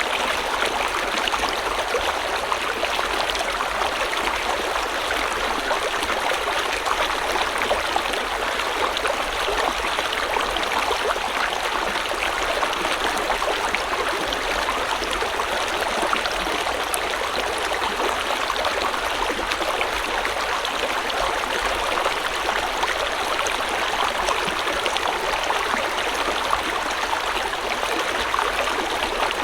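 River water flowing steadily over rocks, a continuous rushing and splashing with fine trickles and gurgles.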